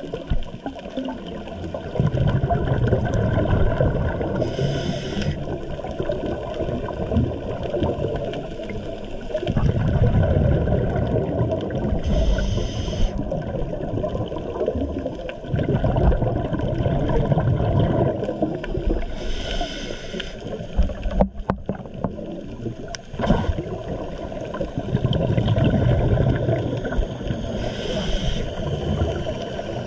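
Scuba diver breathing through a regulator underwater: a long gurgling rumble of exhaled bubbles, then a short hiss as the next breath is drawn, about every seven seconds, four breaths in all. Two sharp clicks in the middle of the stretch.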